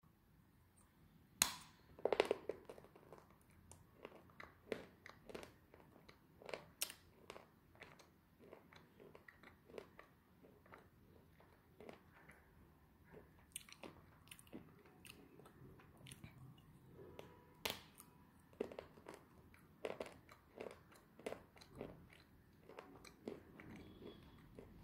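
A white slate pencil being bitten with a sharp snap about a second and a half in, then crunched and chewed in a long run of small, irregular crunches.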